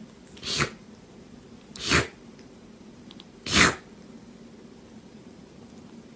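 A kitten sneezing three times, short sharp sneezes roughly a second and a half apart.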